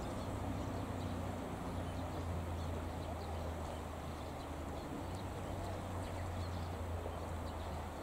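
Steady outdoor riverside ambience, with a constant low rumble and a few faint scattered ticks.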